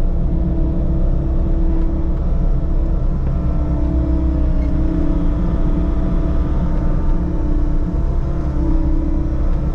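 Diesel engine of a compact construction machine (track loader or mini excavator) running steadily at working speed, with a droning tone that swells and fades as the load changes.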